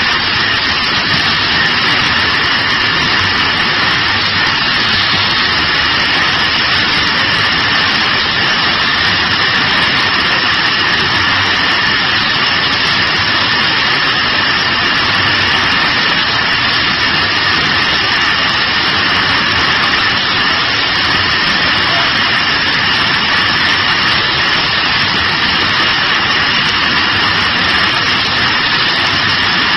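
Automatic carton packing machine and bottle conveyor line running: a loud, steady machine noise with a high, even whine and no distinct knocks.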